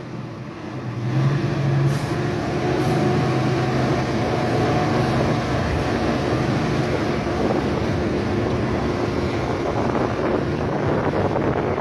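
Caterpillar C15 Acert diesel engine of a Kenworth W900L truck pulling under the load of a bulldozer. It builds up about a second in, then runs steadily.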